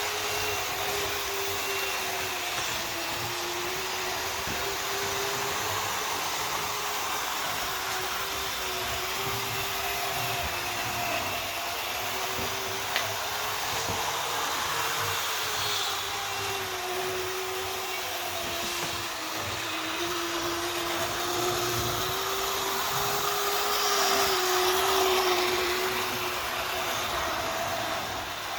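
Tri-ang Blue Pullman model train's small electric motor whining steadily as the train runs along the track, its pitch rising and falling slowly with speed. A single sharp click about 13 seconds in.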